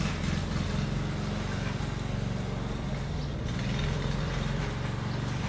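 Engine of a grass mower running steadily, a constant low engine hum.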